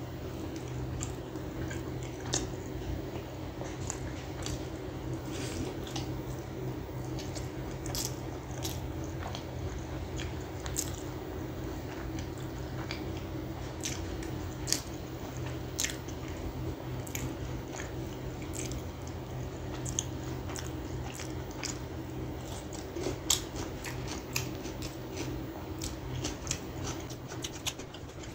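Close-miked chewing and biting of fried chicken, with many sharp wet mouth clicks and smacks throughout, over a steady low hum.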